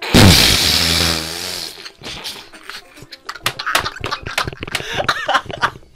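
A loud, harsh rasping burst about a second and a half long, then breathy, wheezing laughter in short gasps with a few squeaky rises.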